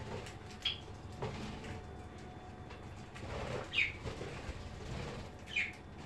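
Budgerigars giving short chirps that fall in pitch, three times (about a second in, past the middle, and near the end), with wings flapping as birds land on and take off from the tray.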